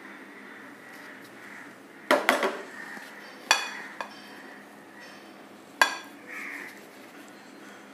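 Kitchenware being handled: a short clatter about two seconds in, then sharp clinks with a brief ring about three and a half and six seconds in, as a tray is set down and hands reach into a glass bowl of dough.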